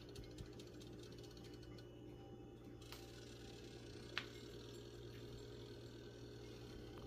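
Quiet room tone: a steady low hum with a few faint clicks, the sharpest about four seconds in.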